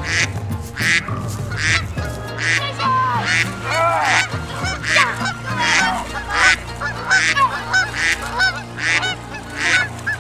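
Geese honking over and over, about one or two honks a second, each call rising and falling in pitch.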